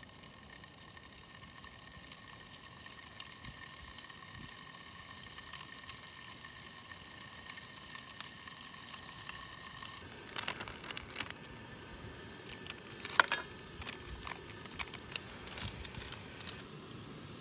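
Slabs of pork belly frying in a square pan on a butane canister stove, a steady sizzle. About ten seconds in the sizzle gives way to a scattered run of clicks and knocks from cookware and utensils being handled, with one sharp clack partway through.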